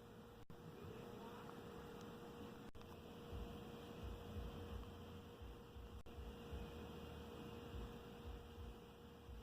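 Faint room tone: a steady electrical hum over low hiss and an uneven low rumble.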